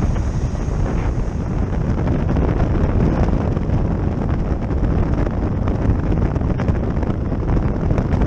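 Steady wind rush and buffeting on the microphone of a camera mounted on a Honda Africa Twin adventure motorcycle ridden at road speed.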